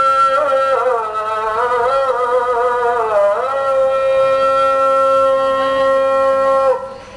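Muezzin chanting the Islamic call to prayer (adhan): a sung phrase with a wavering, ornamented passage, then a long held note that breaks off shortly before the end.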